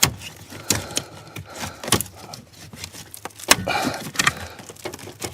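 Plastic wiring-harness connector and loose wires being worked by hand, a string of sharp clicks and rattles as a plug is pried loose from the car's harness.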